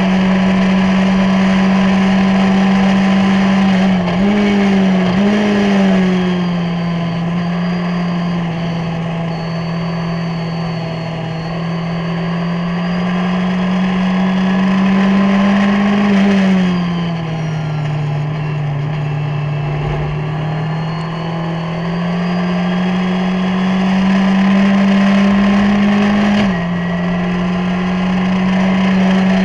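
Onboard sound of a Skip Barber formula race car's 2.0-litre SOHC engine at race pace. The engine note dips and wavers as the car brakes and shifts through a corner, then climbs steadily under acceleration, with a sharp gear change near the end.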